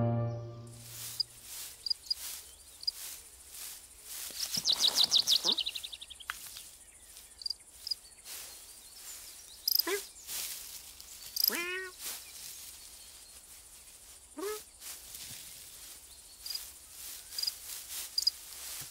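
Countryside ambience with small birds chirping now and then over a faint high insect hiss. A fast, falling trill comes about four seconds in, and three short pitched calls come near the middle.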